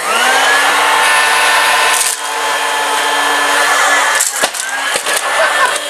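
Dirt Devil Plus vacuum cleaner switched on, its motor whining up to speed within a fraction of a second and then running loud and steady, with its brush-roll belt jammed. The sound dips briefly about four seconds in, followed by a few sharp clicks.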